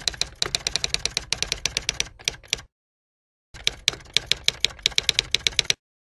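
Typewriter keystroke sound effect: a quick, even run of key clacks, about seven a second. It stops dead for about a second partway through, then runs on for another two seconds and cuts off.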